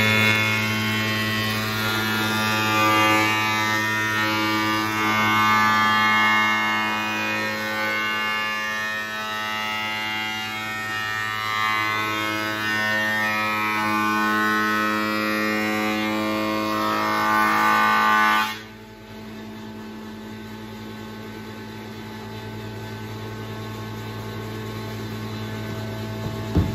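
Woodworking planer running, its cutter block taking a light first pass along the face of a wooden snooker cushion rail to show up high and low spots. The cutting noise stops suddenly about two-thirds of the way through while the motor keeps running, and a sharp knock comes near the end.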